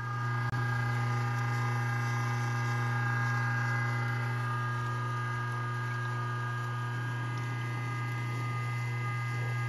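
Cabela's Carnivore commercial-grade electric meat grinder running steadily with a low motor hum, grinding chicken.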